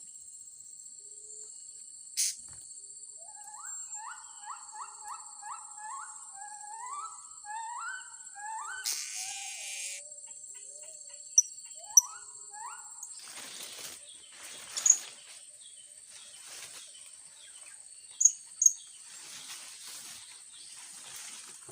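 A steady high-pitched insect buzz, with a bird singing a run of short rising whistled notes, about three a second, for several seconds early on. In the second half come a few very short, sharp high chirps and bursts of rustling.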